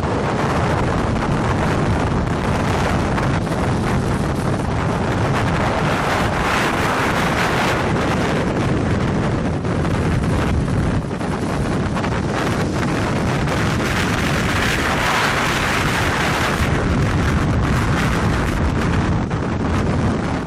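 Strong wind buffeting the microphone: loud, steady wind noise that swells twice, about a third and three-quarters of the way through.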